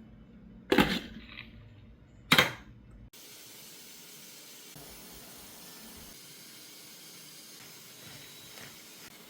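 Two sharp clanks about a second and a half apart, then a steady hiss of a pot boiling.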